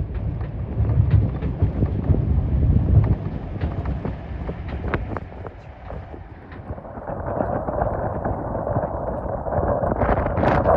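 Wind buffeting the microphone over a low vehicle rumble, the rushing noise growing louder in the last few seconds.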